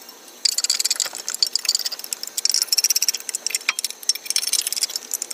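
Ratchet wrench clicking rapidly as the wheel nuts are run on, starting about half a second in.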